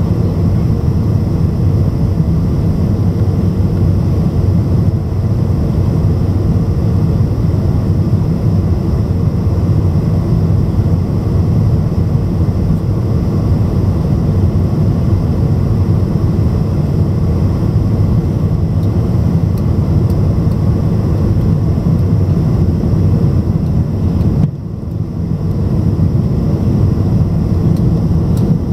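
Steady cabin noise of a Boeing 747 airliner on approach, heard from a window seat over the wing: a low drone of the jet engines and rushing air. The noise dips briefly for about a second near the end.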